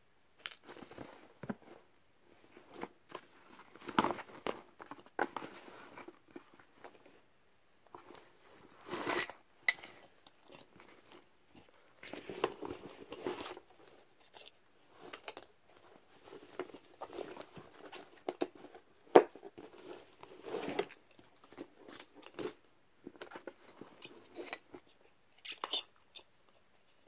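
Handling noise from a canvas gas mask carrier bag and a rubber gas mask: irregular rustling, scraping and small clicks and knocks as the bag is opened and the mask is taken out and set down.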